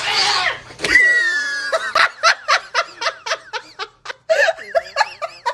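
A person laughing in quick repeated bursts, about four a second. It follows a short noisy burst and a brief falling squeal in the first second.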